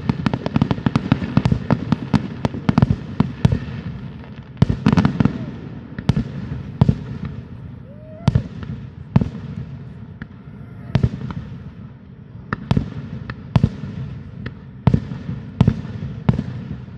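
Aerial fireworks going off: a rapid string of bangs and crackles in the first few seconds, then single echoing booms about once a second.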